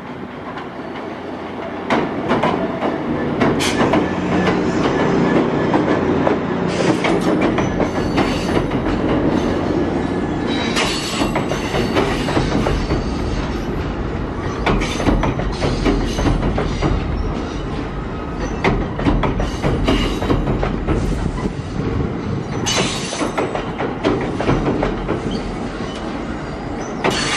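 Commuter train crossing a steel girder bridge: the locomotive passes, then a line of bilevel passenger coaches rolls by with a steady rumble and many clicks from the wheels on the rails.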